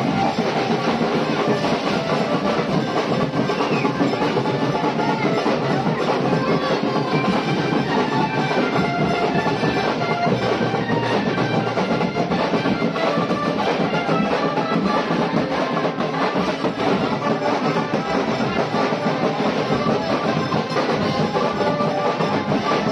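Loud music with drums and percussion, many short melodic notes over a steady beat, with no break.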